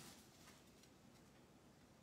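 Near silence: room tone, with a few faint light ticks of trading cards being handled in the first second.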